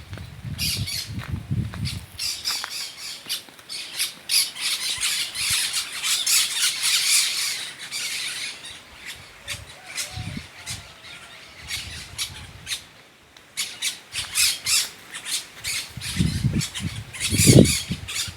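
Flock of small parrots (lourinhos) squawking with many short, harsh calls. Low wind rumble on the microphone near the start and again near the end.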